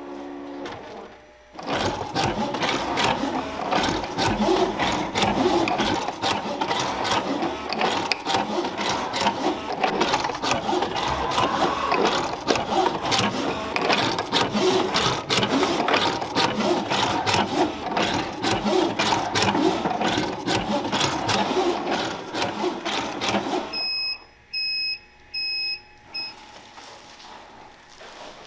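Sushi robot forming nigiri rice balls, running with a loud, dense clatter of rapid mechanical clicks for about twenty-two seconds before it stops. Three short electronic beeps follow near the end.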